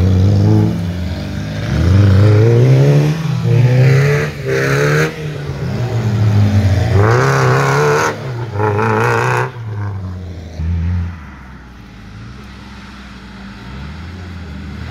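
Off-road vehicle engines revving hard in repeated rising and falling surges as they drive through mud, easing to a quieter, steadier running for a few seconds near the end.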